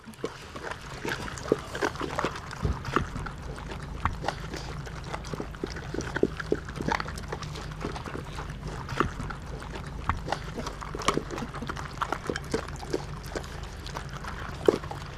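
A group of Labrador puppies eating from food bowls: a dense, irregular run of crunches, chomps and clicks of food and bowls, with a few small dog whimpers.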